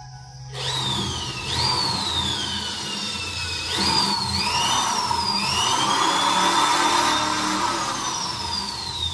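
Corded electric drill boring a hole through a motorcycle helmet's shell. The motor whines up to speed about half a second in, its pitch sagging as the bit bites and recovering twice, then winding down near the end.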